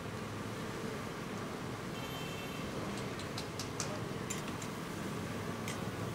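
Steady noise of a wood-fired kitchen as food cooks in karahi woks. A cluster of light, sharp ticks starts about three seconds in, and a few more come near the end.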